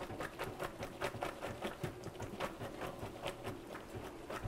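Quiet, irregular patter of light ticks and taps, several a second, from a strainer of freshly drained penne being handled in the sink.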